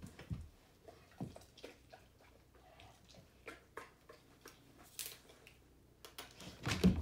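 A large dog on a rubber training platform making small clicks and mouthing sounds as she takes treats from a hand, then a cluster of heavy thumps near the end as she pushes off the platform and sets off toward the jumps.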